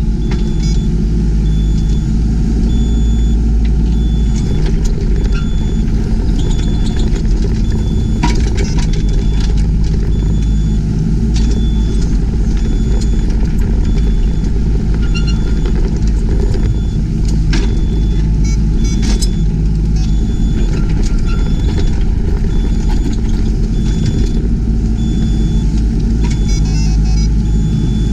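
Yanmar ViO20 mini excavator's diesel engine running steadily while working, with scattered knocks and clicks. A faint high-pitched beep repeats on and off throughout.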